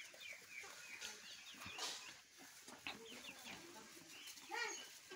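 Flock of domestic pigeons feeding on scattered grain, with many short chirps and one louder pitched call about four and a half seconds in.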